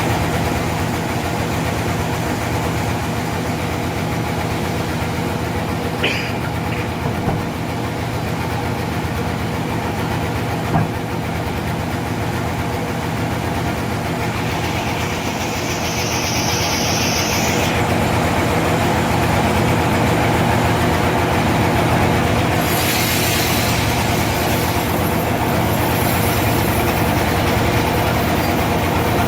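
Sawmill engine running steadily under the mill. A brief high hiss comes about halfway through, a broader hiss a few seconds before the end, and a few light knocks early on.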